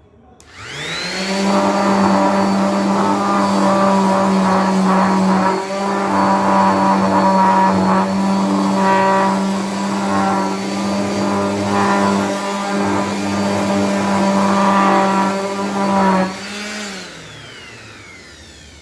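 Electric random orbital sander starting up with a rising whine and running steadily with a homemade hook-and-loop sanding disc fitted, being tested on the work. It is switched off about 16 seconds in and winds down with a falling whine.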